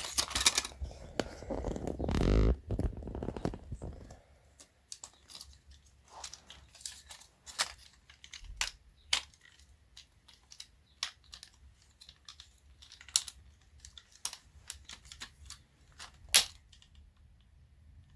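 Small plastic and metal parts of a stereo system's mechanism being handled and pried apart while a small motor is salvaged: a scraping rustle in the first few seconds, then scattered small clicks and taps, with one sharp snap near the end.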